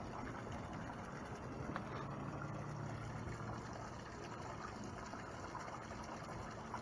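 Harbour water lapping against a dock piling and a moored boat's hull, a steady wash of water noise. A faint low hum joins in about a second and a half in and fades a few seconds later.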